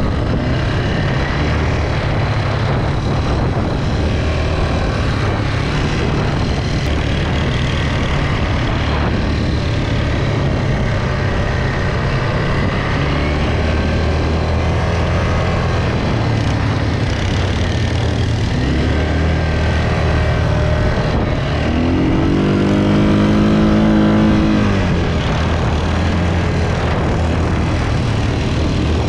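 Quad bikes (ATVs) riding over sand dunes: a steady engine drone with heavy low rumble, and about three quarters of the way through one engine revs up and eases back down.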